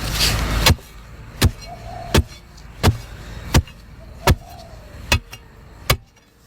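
A loud stretch of noise that stops abruptly under a second in, then a steady series of sharp knocks, about one every 0.7 seconds, with faint short chirps between some of them.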